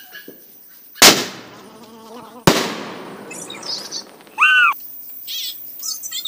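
Diwali aerial firework shots going off: two loud bangs about a second and a half apart, each trailing off over about a second. A short high-pitched tone follows about four and a half seconds in.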